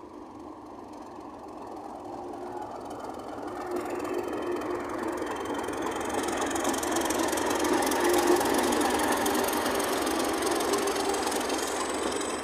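Diesel locomotive hauling passenger coaches past: its engine grows louder as it draws level and goes by, then the coaches roll past with steady wheel-on-rail noise, loudest a little past the middle.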